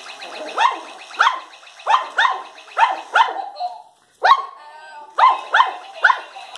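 Yorkshire terrier puppy barks: short, high yaps, about a dozen, coming roughly twice a second with a brief pause just after halfway. These are excited play barks at a mechanical mouse toy.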